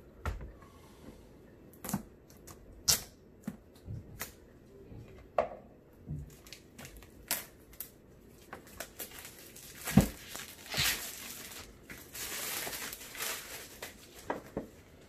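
A cardboard product box being cut open with a folding knife and handled: scattered clicks and taps, then a few seconds of scraping and rustling from about the middle on, with one sharp knock.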